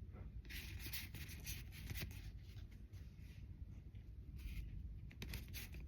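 Pokémon trading cards being handled and slid against each other, giving soft rubbing and scraping with a few light taps.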